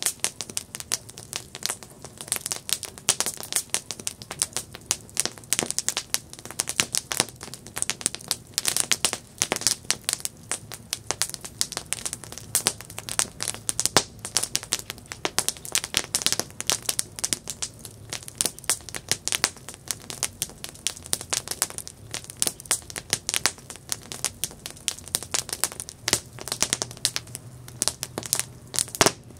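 Campfire crackling: a dense, irregular stream of sharp pops and crackles.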